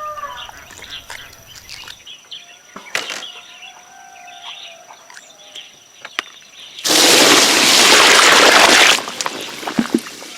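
Birds chirping and calling over a quiet outdoor background. About two-thirds of the way in, a loud rushing noise comes in for about two seconds and drowns them out, then the chirps return.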